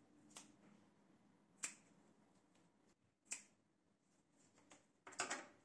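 Small scissors snipping through flattened plastic tubing: single sharp clicks about every second and a half, then a quick, louder cluster of clicks near the end.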